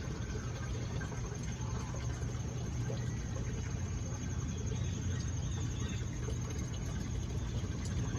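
Steady background noise with a constant low hum.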